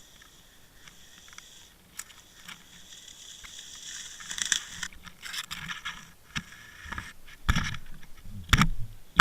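Water Wolf underwater camera picking up its own housing and line noise as it is drawn through the water: irregular scraping, clicks and rattles over a hiss. Two heavy low thumps come near the end.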